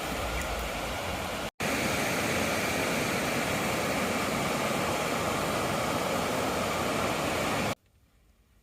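A steady rushing noise that cuts out for a moment about a second and a half in, resumes louder, and stops abruptly near the end.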